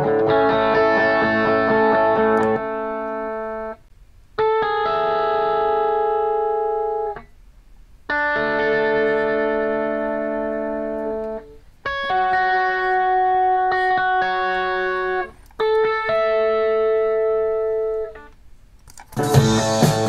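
Solo lead guitar track from a studio multitrack playing alone: about five phrases of long, sustained, effect-laden notes that step from pitch to pitch, each phrase stopping short before the next. Louder, fuller music comes in near the end.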